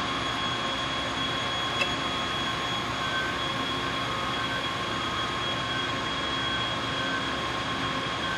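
Steady machinery hum with a constant high whine running evenly throughout, and a single faint click about two seconds in.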